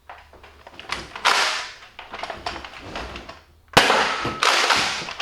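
Nerf Rival Apollo spring-powered blaster being worked by hand: plastic clicks and rattles of the priming slide and magazine, then a sharp loud snap of a shot nearly four seconds in. This is the round just before the blaster jams again.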